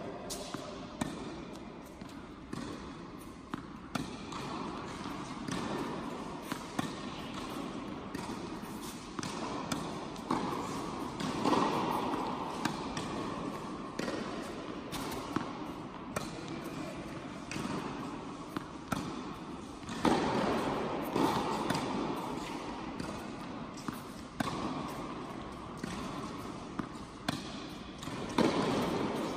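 Tennis balls struck by rackets and bouncing on an indoor hard court during a baseline rally: repeated sharp hits at an irregular pace, echoing in a large hall.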